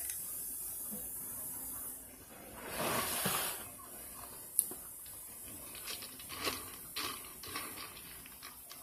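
A brief breathy rush of noise about three seconds in, then a sharp click and a run of light clicks and taps of a metal spoon in a cereal bowl.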